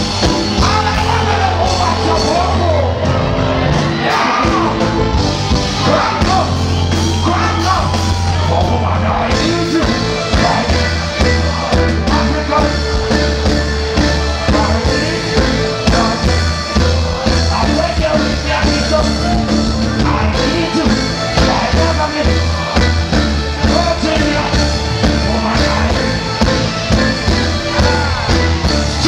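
Live reggae band playing through a concert PA, with a heavy bass line under a male vocalist singing and chanting into a microphone. Crowd shouts and yells mix in.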